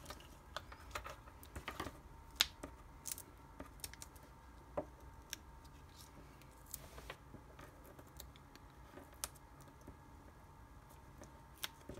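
Faint scattered clicks and rustles of hands handling paper, ribbon and a pair of scissors on a craft cutting mat, with one sharper click a little over two seconds in.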